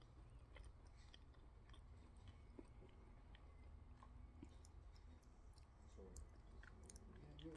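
Faint chewing of a mouthful of food, with scattered soft clicks over a low steady hum.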